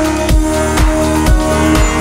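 Electronic dance music with a steady kick-drum beat, about two beats a second, under sustained synth chords.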